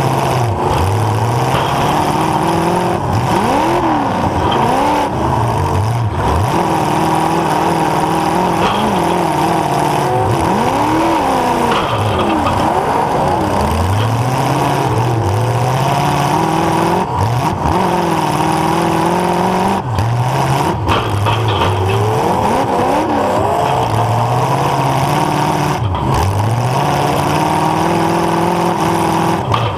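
Demolition derby car's engine heard from on board, revving up and dropping back again and again, its pitch climbing and falling every two to three seconds as the car accelerates and backs off.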